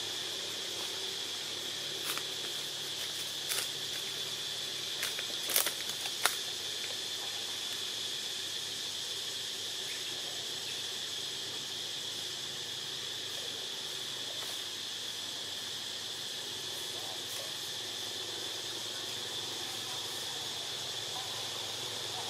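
Forest insects making a steady high-pitched drone, with a few sharp clicks in the first six seconds.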